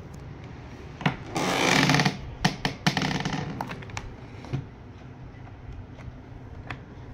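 Wooden parts of a harmonium being handled: a sharp knock, then a loud rasping scrape of about half a second, followed by several scattered clicks and knocks.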